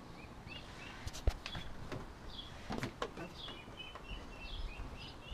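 Ducklings peeping in short, high, repeated chirps, with a sliding patio door opening and a few sharp knocks, the loudest about a second in.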